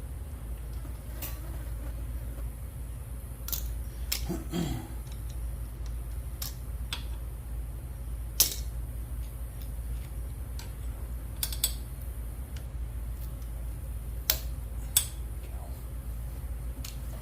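Scattered metallic clicks and clinks, the loudest about eight seconds in, from hand tools and the drive chain of a Coleman KT196 go-kart being fitted, with a short creak around four seconds in, over a steady low hum.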